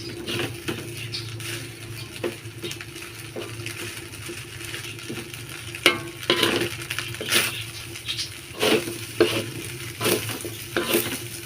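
Leftover basmati rice frying in butter in a pan, sizzling faintly while it is stirred. Irregular scrapes and knocks of the utensil against the pan come more often and louder from about halfway through, over a steady low hum.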